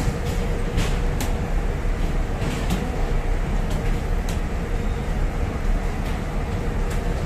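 Steady low rumble of bus-station background noise, with a faint steady hum and a few short faint clicks scattered through it.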